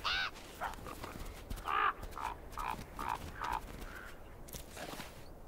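Gray wolves giving a string of short, arching yelps and whines, about six calls over the first four seconds.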